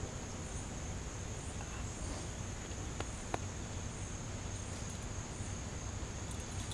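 Steady, high-pitched chorus of insects trilling, over a low rumble of outdoor noise, with two faint ticks about three seconds in.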